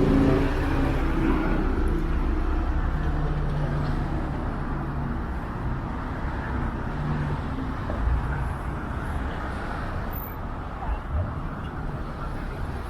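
City street traffic: a motor vehicle's engine is close and loud at first, then fades away, over a steady rumble of passing traffic.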